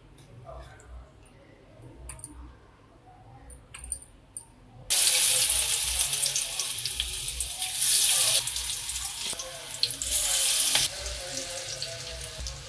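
Batter-coated green chillies frying in hot oil in a kadhai: after a few seconds of faint clicks, a loud sizzle starts suddenly about five seconds in as they go into the oil, easing somewhat near the end.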